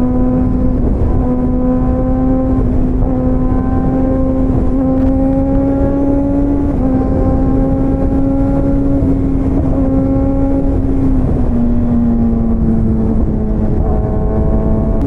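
Motorcycle engine and exhaust running at steady high revs while riding, holding one droning pitch that creeps up slightly and then drops a step about eleven seconds in, over a low rushing noise.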